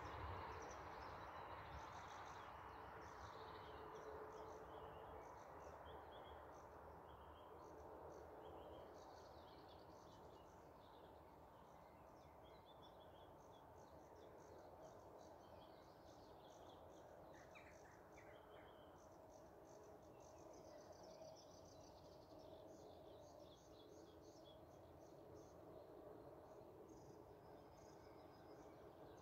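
Faint birdsong: many short chirps and trills from several birds, over a low steady background hum.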